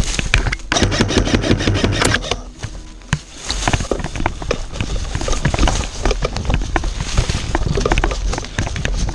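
Airsoft electric guns firing: a rapid, evenly spaced burst of shots about a second in, then scattered single shots and clicks, with a low wind rumble on the microphone.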